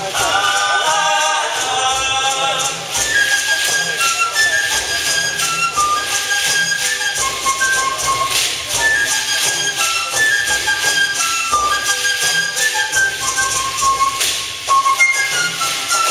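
Traditional folk dance music: voices singing briefly at the start, then a high flute melody over rapid shaken rattle and tambourine-like percussion.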